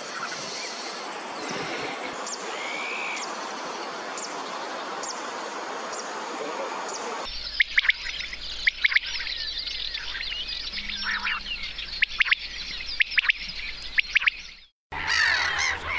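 Steady outdoor hiss with only a faint chirp, then, after an abrupt change about seven seconds in, birds chirping in many short, high calls over a quieter background. The sound drops out for a moment near the end before busier birdsong starts.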